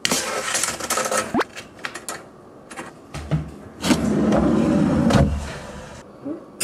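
Retractable tape measure being pulled out and handled against the wooden sides of a kitchen drawer: clicks and knocks with a quick rising zip, then a louder rumbling slide lasting about a second around four seconds in.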